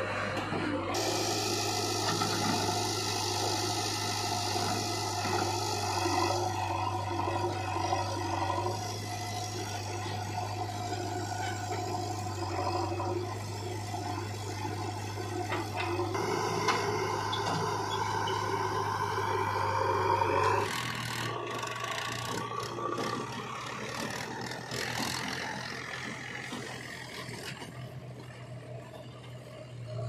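JCB 3DX backhoe loader's diesel engine running steadily under working load as its bucket dumps soil into a tractor trolley, with scraping and rattling. About 21 seconds in, the engine note shifts slightly higher and clattering comes in.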